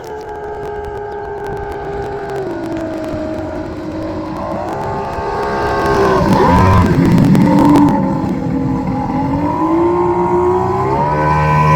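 Engine of a homemade aluminium jet boat, running and getting louder as it comes closer. Its pitch drops a little about two and a half seconds in, dips again in the middle, and climbs near the end as the throttle changes.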